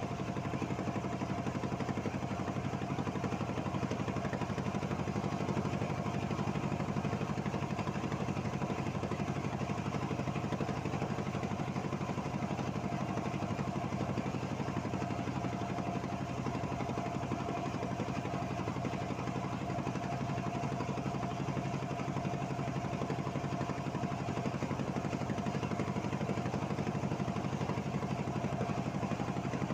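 Boat engine running steadily at a constant pitch, with no change in speed.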